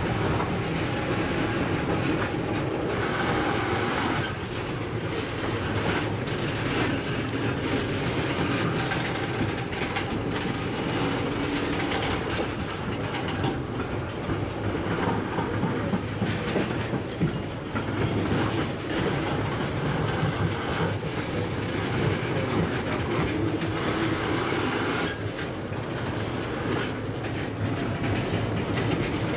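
A passenger train rolling past, its wheels rumbling steadily on the rails with repeated clicks over the rail joints.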